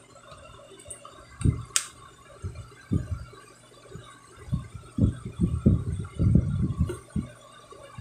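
Handling noise as coins are picked up and turned over by hand: a series of dull low thumps and bumps, thickest from about five to seven seconds in, with one sharp click about two seconds in.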